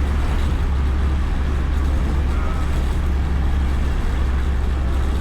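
Steady wind and road rumble of a moving motorcycle, heard through a microphone inside the rider's helmet.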